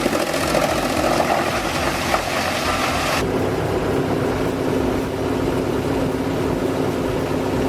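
Wood chipper running, its engine and chipping noise dense and loud. About three seconds in, the sound cuts abruptly to a machine engine running steadily at one pitch.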